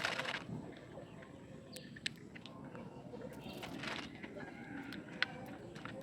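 Plastic toy excavator parts being handled and snapped into place by hand: light rustling with two short, sharp clicks, about two seconds in and about five seconds in.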